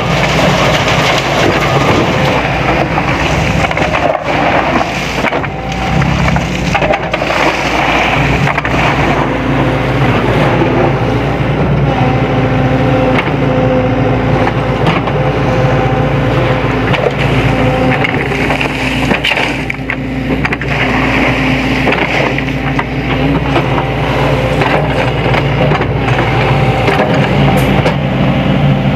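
Sany SY75C excavator's diesel engine running under load, its pitch shifting now and then as the hydraulics work, with scattered knocks and crunches of gravel.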